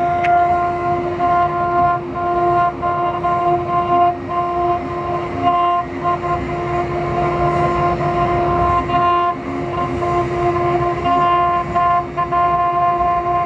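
CNC wood carving router running, its spindle giving a steady high whine, with a higher tone that breaks on and off over rough cutting noise as the bit works the wood.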